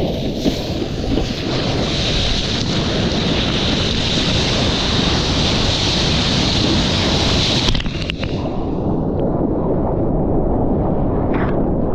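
Ocean surf rushing, with heavy wind buffeting the microphone. A loud hiss of breaking water stops abruptly about eight seconds in, leaving a low rumble.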